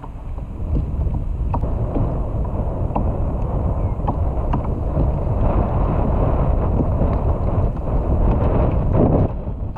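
Wind buffeting the microphone with a steady low rumble, while choppy water laps against a kayak's hull, with scattered light clicks throughout.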